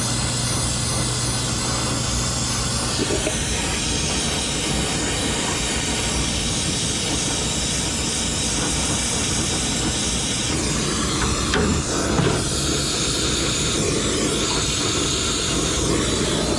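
Steady hiss of a brazing torch flame playing on a refrigeration filter drier's brazed joint to unsweat it, with nitrogen purging through the piping. A couple of light knocks come about two thirds of the way through.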